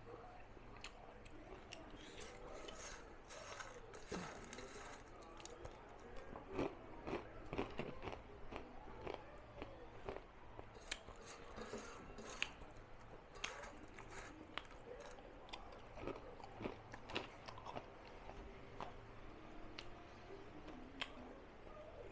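A person chewing and biting food close to the microphone: a run of irregular crunches and wet mouth clicks.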